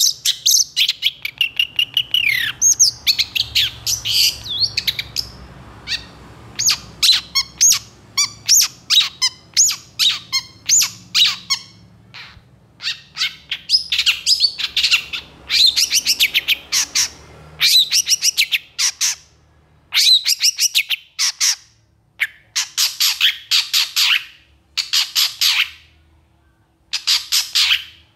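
Long-tailed shrike singing in full voice: rapid runs of short, sharp notes, in bursts of a few seconds broken by brief pauses.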